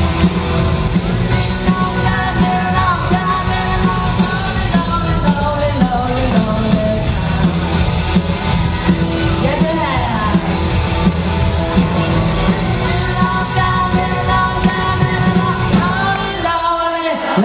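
Live hard-rock band playing with a female lead vocal, drums, bass and piano, heard from the audience through a pocket camcorder's microphone. Near the end the drums and bass cut out, leaving only the voice and higher held tones.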